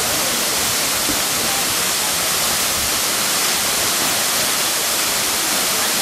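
A tall waterfall, about 33 m high, pouring onto rock: a steady, even rushing hiss of falling water.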